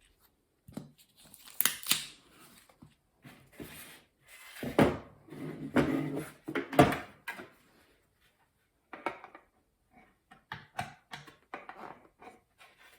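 Packaging being handled and unwrapped: irregular rustling, scraping and light knocks in uneven clusters, busiest in the middle, then a run of short sharper handling sounds near the end.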